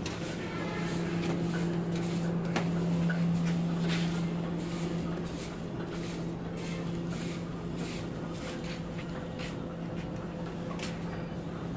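A steady low hum with a couple of fainter higher tones above it, a little louder for the first few seconds, with scattered light clicks and taps over it.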